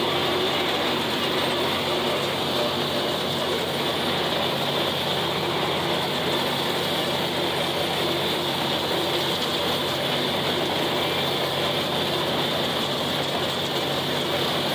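John Deere 4020 tractor's six-cylinder engine running steadily under load while it drives a brush hog (rotary cutter), with the mechanical rattle of the drivetrain and cutter gearbox.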